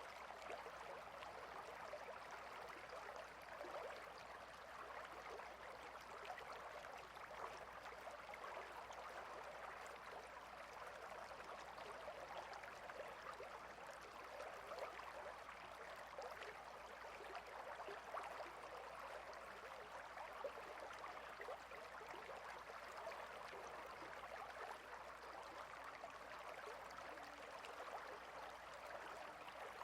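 River water flowing: a faint, steady rush of moving water that keeps up evenly throughout.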